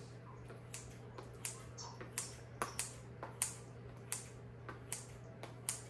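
Kitchen scissors snipping food in a small bowl: about a dozen sharp, irregular clicks as the blades close.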